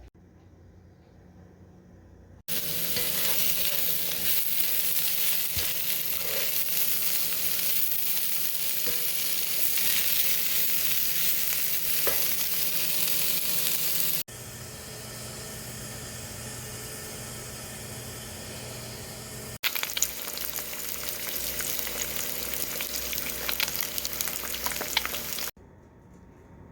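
Food frying in a hot pan: loud sizzling starts a couple of seconds in, drops to a softer, duller sizzle for a few seconds, then comes back loud with sharp pops and crackles of spitting fat before cutting off near the end.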